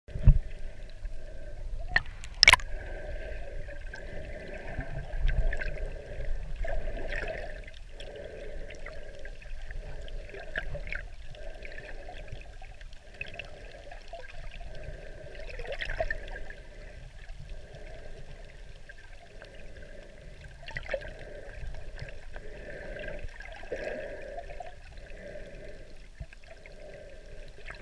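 Muffled water movement heard underwater, an uneven sloshing wash with low rumble. Two sharp knocks come about two seconds in.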